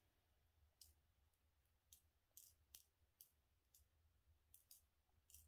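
Faint, scattered light clicks of small resin diamond-painting drills being handled and picked off a coin they cling to by static charge.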